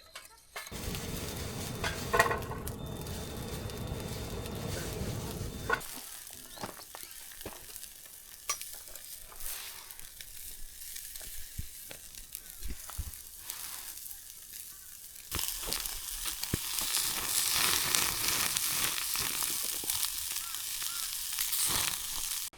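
Lamb skewers sizzling and crackling over a charcoal fire, with scattered pops. The sound changes abruptly twice, quieter about 6 s in, then a louder, hissier sizzle from about 15 s in.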